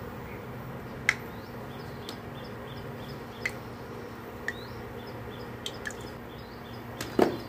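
A single blob of besan batter frying in hot oil, with a soft sizzle and a few short sharp pops: the test drop that shows the oil is hot enough for pakoras. A quick, repeating high chirp runs in the background, and a dull knock comes near the end.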